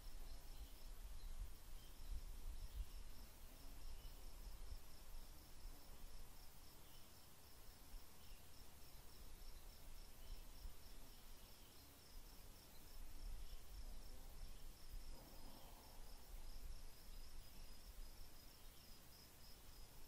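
Crickets chirping in a steady, fast pulsing trill, faint, over a low rumble.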